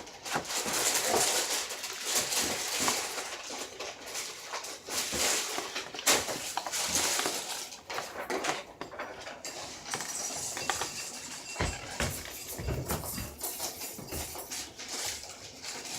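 A utensil stirring and scraping glue in a bowl, with many small clinks and knocks.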